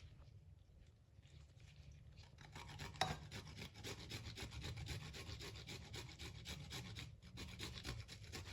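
Fresh ginger root grated on a hand grater: rapid rasping strokes that begin about two seconds in and pause briefly near the end, with one sharp knock about three seconds in.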